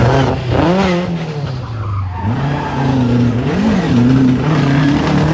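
Historic rally car's engine driven hard on a special stage, its pitch climbing and dropping repeatedly through gear changes and throttle blips, with a quick blip about three and a half seconds in.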